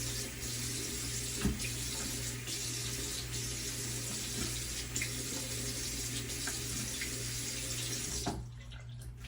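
Tap running into a sink with splashing as a face is rinsed with cold water; the water stops abruptly near the end.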